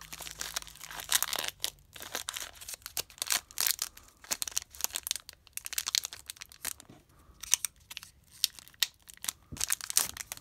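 Foil-lined wrapper of a Pokémon TCG Vivid Voltage booster pack crinkling and tearing as it is worked open by hand, in irregular bursts of sharp crackling.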